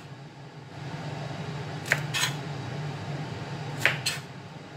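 Kitchen knife chopping through a bunch of yard-long beans onto a plastic cutting board: two pairs of quick cuts, about two seconds apart, over a low steady hum.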